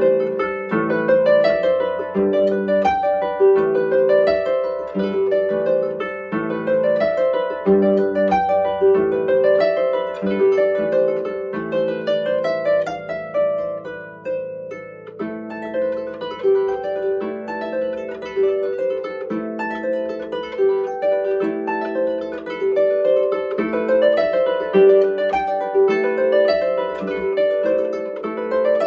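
Pilgrim Skylark Wave lever harp played solo: a folk tune plucked with both hands on its strings, with a softer passage about halfway through.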